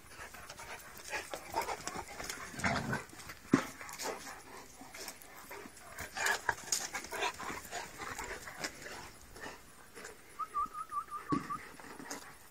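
A dog panting and moving about, with irregular short scuffs and puffs of breath. A short wavering high-pitched tone comes near the end.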